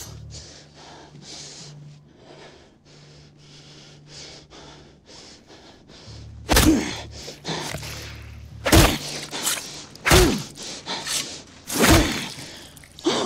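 Quick, shaky breathing, then about five heavy chopping blows into a limb on a table, each met with a short pained cry and spaced about a second and a half to two seconds apart.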